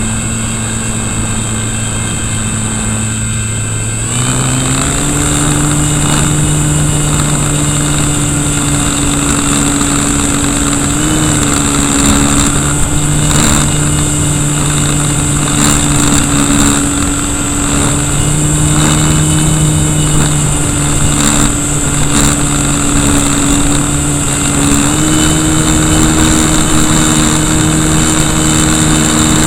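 KV1100 brushless electric motor spinning the propeller of an RC Cessna in flight, heard from right beside the motor: a steady buzzing hum with a thin high whine, stepping up in pitch about four seconds in as the motor speeds up, and shifting slightly again later on. Wind rushes over the microphone throughout.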